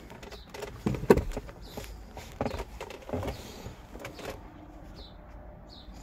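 A car's sun visor being handled: a few scattered clicks and knocks, the sharpest about a second in.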